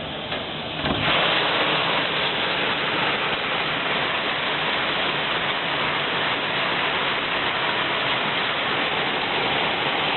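Heavy rain mixed with hail pouring down, a dense steady hiss that grows louder about a second in.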